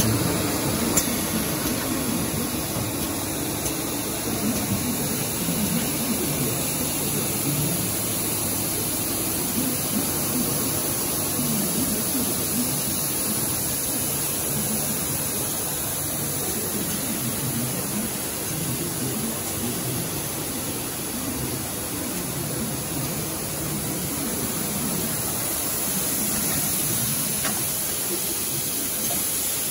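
Cigarette-pack binding machine and its inspection conveyor running, a steady, even mechanical noise with a constant hiss over it.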